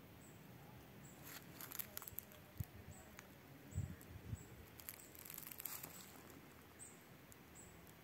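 Quiet outdoor ambience: a faint, short, high chirp repeats about once a second, with crackly rustling and two low bumps near the middle.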